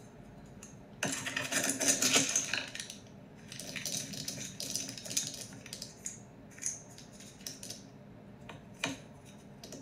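Dry dog kibble being scooped from a clear plastic storage bin: a clattering rush of pellets about a second in, a second one a little later, then scattered clicks of single pieces dropping back into the bin.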